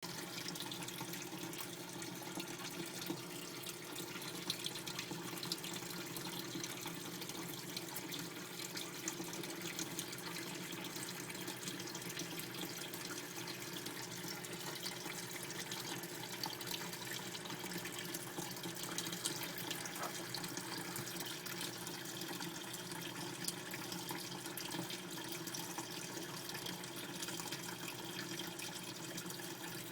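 Water running steadily with a few faint drips and clicks.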